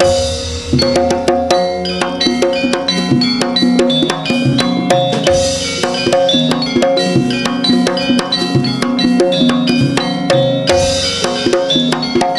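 Live kuda kencak accompaniment music: drums and struck tuned percussion playing a fast, dense rhythm over steady repeated notes, with a deeper splashy stroke recurring about every five seconds.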